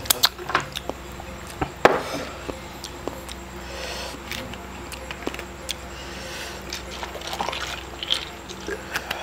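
Mouth smacks as sauce is licked off the fingers, a few sharp clicks and knocks of bottle and glassware being handled, then a white drink poured from a plastic bottle over ice cubes in a glass mug near the end.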